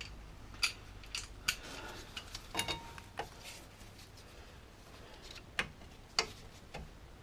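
Metal hand tools clinking and tapping: a breaker bar and T55 Torx bit being handled and fitted before loosening the brake caliper bracket bolts. About seven sharp clinks come at irregular intervals, one ringing briefly.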